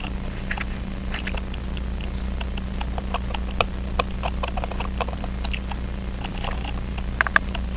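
Small, irregular metallic clicks and scratches from a watchmaker's screwdriver working a tiny screw into a pocket watch movement's plate, over a steady low hum. There are a few sharper ticks in the middle and near the end.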